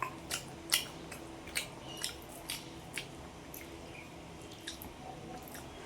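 Close-miked chewing with wet mouth smacks, a run of sharp clicks about twice a second for the first three seconds, then fewer and fainter.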